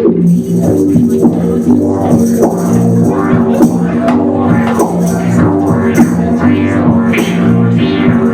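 Live band music: steady held low tones that shift every second or so, with sharp percussive hits over them.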